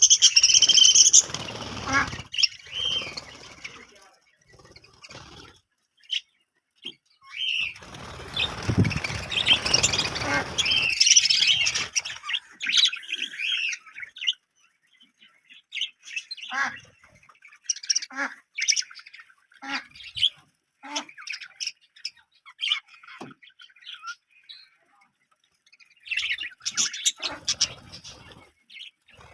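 Budgerigars chirping and chattering in quick short calls. There are two louder stretches of rustling noise mixed in, one at the very start and one from about eight to eleven seconds in. After these the chirps come sparser and scattered.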